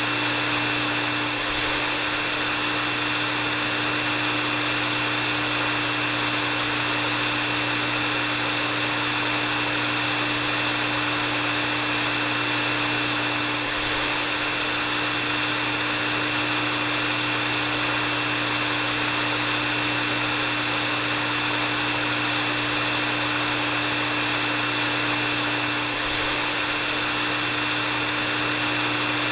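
Hair dryer running steadily: an even rush of blown air with a steady high whine and a lower hum underneath.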